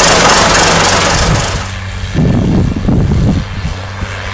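John Deere tractor's diesel engine running loud and steady. About one and a half seconds in, it cuts to a Case IH Puma tractor's diesel engine working under load as it pulls a seed drill, with an uneven low rumble over a steady hum.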